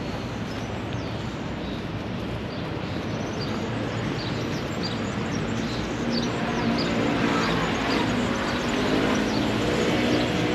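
City-centre street ambience: steady traffic noise, growing somewhat louder from about six seconds in, with short high bird chirps scattered through it.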